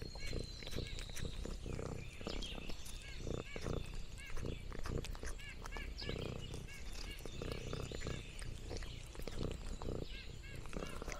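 An orange tabby cat purring close to the microphone in uneven low rumbles, with light rustling and repeated small high chirps.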